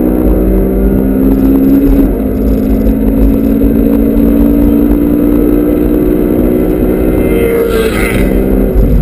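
Inside the cabin of a Honda Civic Type R FD2: its 2.0-litre four-cylinder engine runs at a fairly steady speed under heavy road and wind rumble. Near the end another car passes close alongside with a brief rush of noise.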